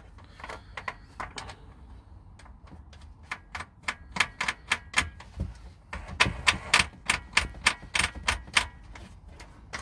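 A series of sharp clicks and taps, a few a second and bunched in clusters, from hard plastic and metal parts being handled and clicked into the floor rail as the side piece of a rear pull-out drawer and its threaded rail fixings are fitted.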